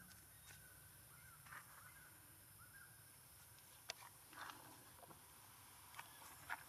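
Quiet forest ambience with faint, short chirping calls and a few soft rustles, broken by two sharp clicks, about four seconds in and near the end.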